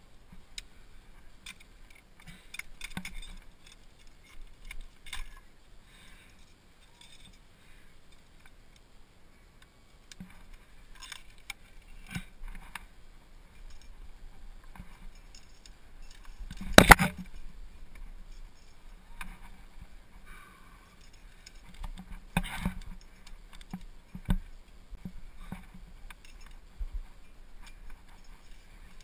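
Climbing gear clinking, carabiners and quickdraws on the climber's harness, with scuffs of the climber moving on rock, coming and going. A sharp knock a little over halfway through is the loudest sound, and another, smaller knock follows a few seconds later.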